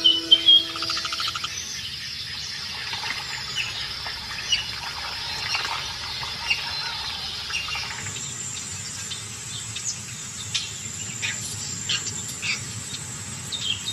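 Wild birds chirping and calling over an insect chorus; about eight seconds in, a steady high insect whine joins. The tail of the background music fades out in the first moments.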